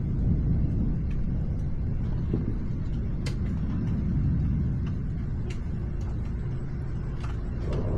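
Low, continuous rumble of distant thunder during a nighttime thunderstorm, with a few scattered sharp ticks. It swells again near the end.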